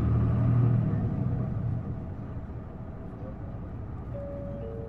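Interior sound of an Isuzu Erga city bus's diesel engine pulling away from a stop. The engine drones loudly under load for about two seconds, then eases off. Faint steady high tones come in near the end.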